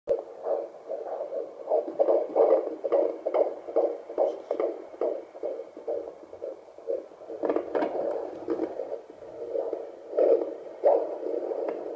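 Fetal heartbeat through a handheld Doppler's speaker: fast, rhythmic pulsing. About halfway through there are a few crackles as the probe shifts on the belly.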